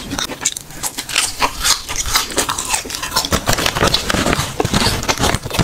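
A person chewing chewy chili-coated gluten snack strips (latiao) close to the microphone, with a dense run of quick, wet mouth clicks.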